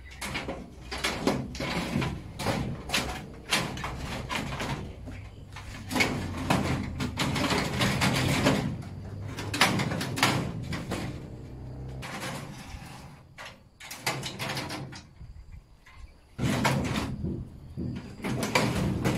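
Steel filing-cabinet drawers pulled out and pushed shut again and again on their metal slide rails, each run a rumbling slide with knocks as the drawer stops. There is a quieter pause about two-thirds of the way through.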